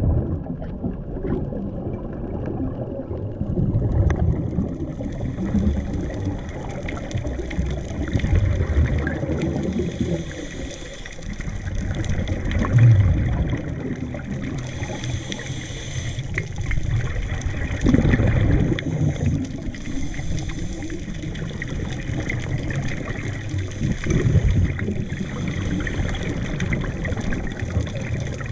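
Underwater sound of a scuba dive: a steady low water rumble, with bursts of bubbles from a scuba regulator's exhaust about every five seconds as the diver breathes out.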